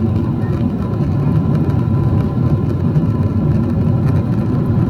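Cabin noise of a Boeing 777-300ER's GE90-115B engines at takeoff thrust: a loud, steady low rumble with a faint steady whine above it.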